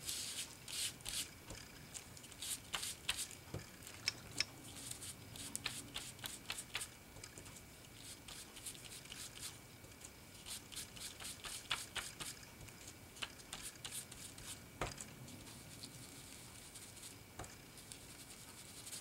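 Small archival ink pad being dabbed and rubbed along a paper strip on a craft mat: irregular soft scratchy taps and rubs, busiest in the first few seconds.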